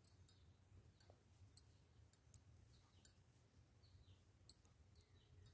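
Faint, irregular clicks of knitting needles as stitches are worked by hand, roughly two a second, over a low room hum.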